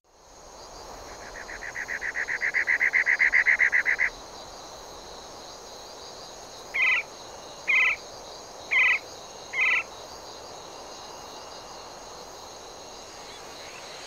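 Night-time forest ambience of frogs and insects: a steady high insect drone, a rapid pulsing trill that swells over about three seconds, then four short calls about a second apart.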